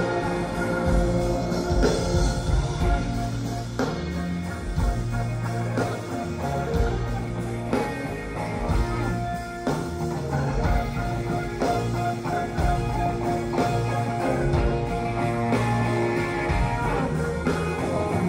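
Live rock band playing electric guitars, bass and drums, taped from the audience in the hall, with steady drum hits under held guitar notes.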